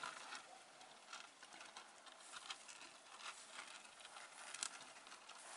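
Faint, scattered scratching and ticking of small feet: house mice scrabbling on the smooth floor and walls of a container while one is picked up by hand.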